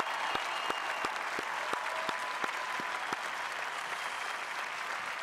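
A large crowd applauding steadily. Over it, sharper single claps close to the podium microphone come about three times a second, stopping about three seconds in.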